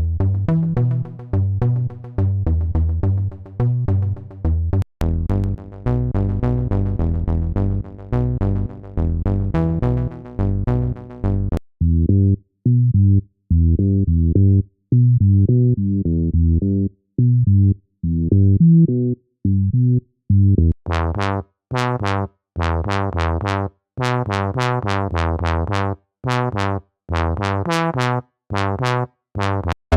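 SynthMaster One software synthesizer playing a fast, repeating electronic bass riff. The tone changes abruptly twice as one preset gives way to the next: about a third of the way in it turns dull and muffled, and near two-thirds of the way in it becomes bright and plucky.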